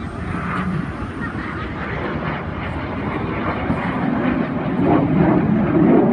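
Aircraft engine noise from a plane flying past at an air show, a steady rushing sound that grows louder as it approaches.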